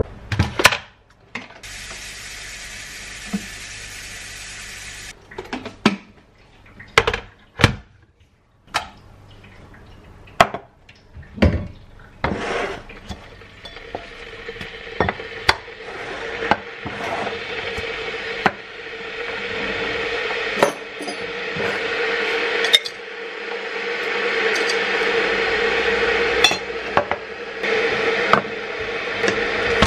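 Glass mug, glass jar of tea bags and a spoon clinking and knocking on a granite worktop, then an electric kettle heating up, its hiss and hum growing steadily louder.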